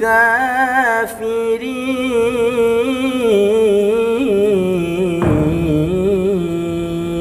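A young male qari's unaccompanied voice reciting the Quran in the melodic tilawah style, drawing out a long ornamented melisma with wavering pitch. Near the end it settles into one steady held note.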